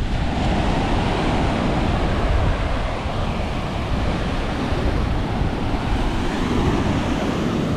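Waves breaking and washing up on a sandy beach in a steady rush, with wind buffeting the microphone.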